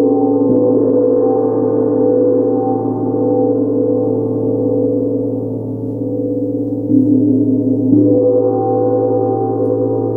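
A 60 cm Tibetan gong played with a soft padded mallet, ringing in a dense, sustained wash of many overlapping tones. It is stroked again gently, with fresh strokes building the ring about seven and eight seconds in.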